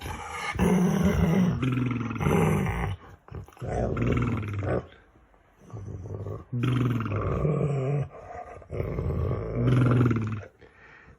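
Dog making playful growling, grumbling vocal noises in about five drawn-out phrases, with short pauses between them.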